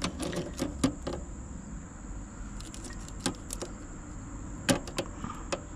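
Irregular small clicks and rattles of fibre-optic drop cables and plastic connectors being handled and fitted into a splitter inside a cable cabinet, with a faint steady high tone throughout.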